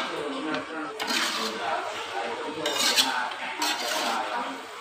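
Metal spatula scraping and clanking against the inside of a metal wok while stirring pieces of pork in spice paste. There are sharp scrapes about a second in, near three seconds and around four seconds.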